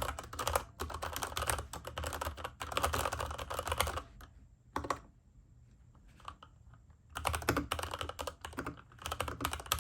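Fast typing on a Varmilo mechanical keyboard with Cherry MX Red switches: a rapid clatter of keystrokes. The typing stops for about three seconds in the middle, broken by a single keystroke, then starts again.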